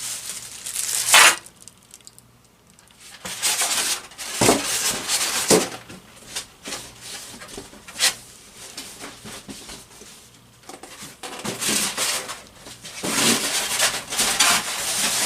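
Cardboard box and foam packing being handled and pulled apart: irregular rustling, scraping and crinkling with a few sharp knocks.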